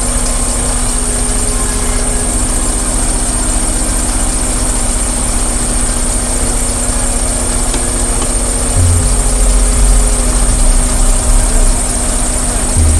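Semi truck's diesel engine idling steadily, its low rumble growing a little louder about nine seconds in.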